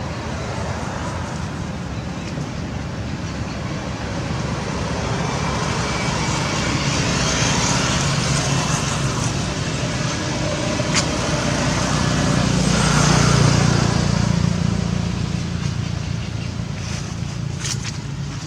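Rumble of a passing vehicle that swells to its loudest about thirteen seconds in and then fades, with a few sharp clicks.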